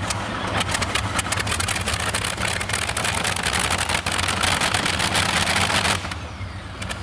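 Modified pulling tractor's engine running at idle with a rapid firing beat; much of the upper noise drops away about six seconds in, leaving a lower rumble.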